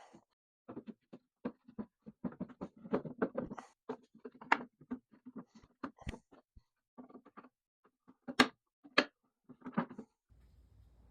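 Hand tools cutting mortise and tenon joinery in wood: an irregular run of taps, knocks and scraping, with the loudest sharp strikes about eight and nine seconds in. It stops shortly before the end.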